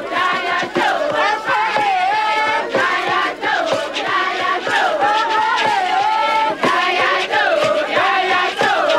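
A crowd singing and chanting together, high wavering women's voices leading, over a steady beat of sharp hits.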